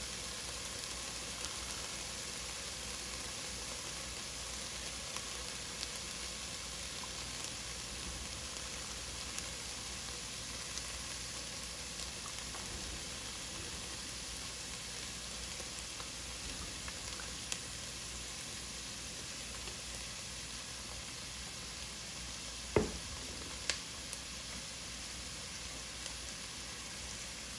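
Chopped red onions sizzling steadily in a nonstick pot as they soften over the heat. A sharp knock comes about three-quarters of the way through, followed by a lighter one.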